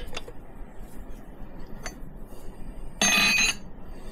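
Metal tools and fittings clinking on a milling machine table, with a short harsh metallic scrape or rattle about three seconds in. The mill itself is not running.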